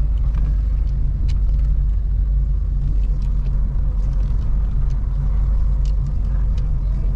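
Steady low rumble of a car on the move, engine and road noise as heard from inside, with a few faint clicks.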